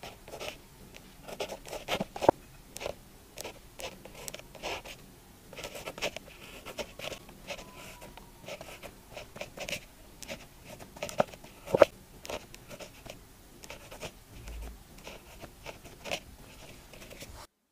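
Pen writing on paper: short scratchy strokes in an irregular rhythm, with a few sharper taps, the loudest about two seconds and about twelve seconds in. The sound cuts off suddenly near the end.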